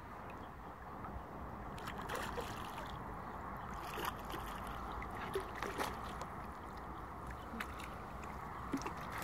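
Water sloshing with small, irregular splashes as a hooked carp is played in close to the bank toward a landing net.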